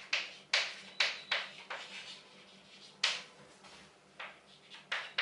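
Chalk writing on a blackboard: short scratchy strokes, about eight of them, bunched in the first two seconds and then about a second apart.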